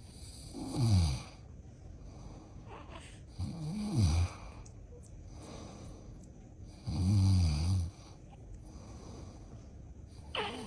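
A man snoring: three loud snores about three seconds apart, each dropping in pitch.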